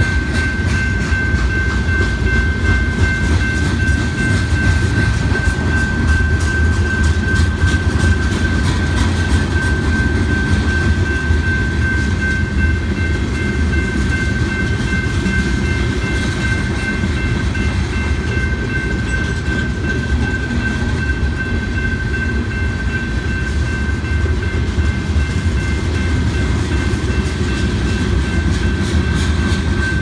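Freight train of covered hopper grain cars rolling past a grade crossing: a steady heavy rumble with frequent wheel clacks over the rail joints. A steady high ringing tone sounds over it.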